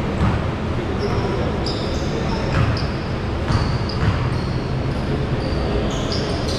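Basketballs bouncing on a hardwood court in a large echoing gym, with short high sneaker squeaks scattered throughout and a steady hubbub of voices.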